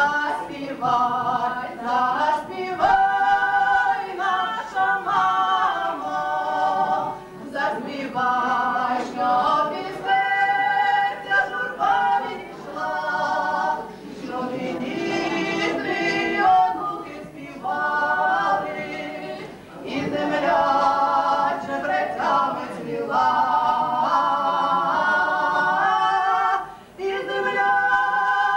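Two women singing a folk song unaccompanied, in sung phrases of a few seconds with short pauses for breath between them.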